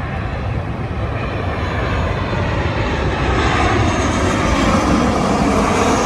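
Jet airliner passing low overhead on landing approach: engine noise swells to its loudest about five seconds in, with a whine that falls in pitch as it goes by.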